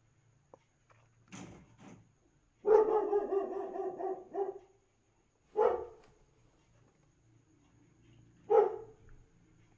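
Dog barking while two dogs wrestle: a run of rapid barks about three seconds in, then single barks near six and near nine seconds.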